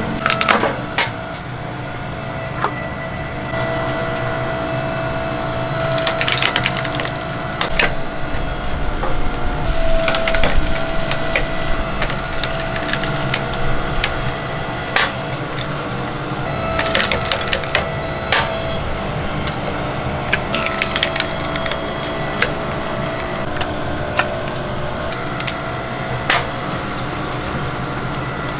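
Wooden clattering and cracking, with about four denser bursts of crackle each lasting a second or so, over a steady mechanical hum.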